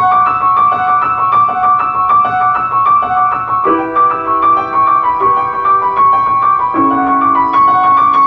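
Grand piano played solo: a fast, repeating five-note right-hand figure in 5/8 time, with lower left-hand notes joining about four seconds in and shifting again near the end.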